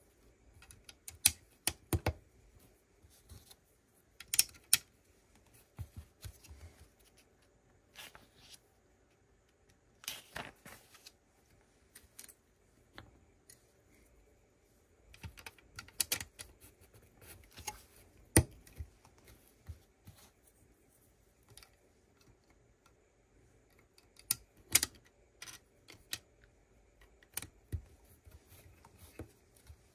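Plastic Lego pieces clicking and tapping as they are handled and pressed together, in scattered clusters of sharp clicks with short pauses between.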